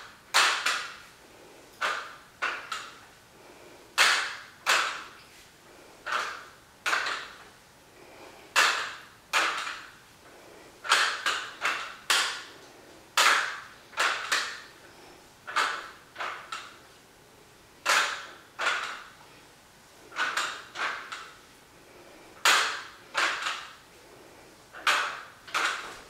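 Short, forceful breaths out during a dumbbell arm exercise, one or two with each rep, each starting sharply and fading within about half a second.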